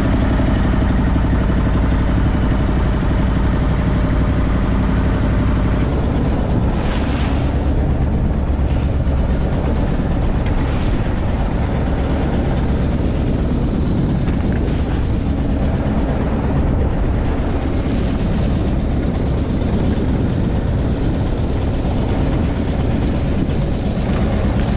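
A small fishing boat's engine running steadily under way, with the hull slapping through choppy water. From about six seconds in, spray and wave slaps over the engine grow rougher, with several sharper splashes.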